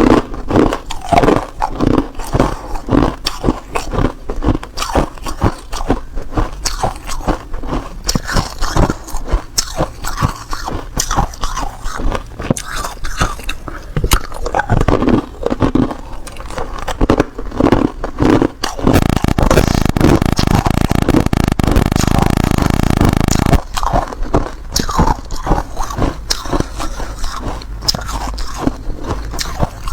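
Close-up crunching of hard ice being bitten and chewed: loud, sharp crunches in quick succession. About two-thirds of the way through, the crunching gives way for roughly four seconds to a dense, continuous grinding noise before the separate crunches return.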